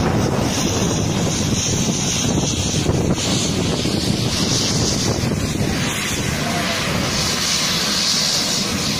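Twin-turboprop airliner's engines running as it taxis close by: a loud, steady rumble with a bright hiss on top, and wind buffeting the microphone.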